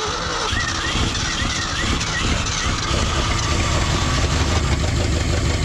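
Starter cranking the old Ford F350's V8 steadily on gas gravity-fed from a jerry can, the engine turning over without settling into a run.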